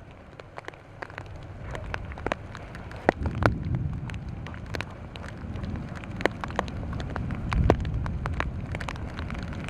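Rain falling, with many scattered raindrops ticking sharply close to the microphone over a steady hiss. Low gusts of wind buffet the microphone twice.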